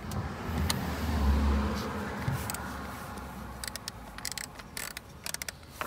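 A low rumble swells and fades over the first couple of seconds. Then a hand ratchet with an extension clicks in short runs as a torque-mount bolt is backed out.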